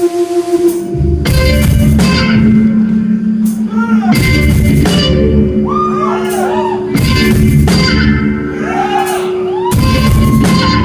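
Live rock band with electric guitar and drum kit: a pulsing held guitar note gives way about a second in to the full band playing loud, with cymbal crashes every second or two and bending pitched lines in the second half.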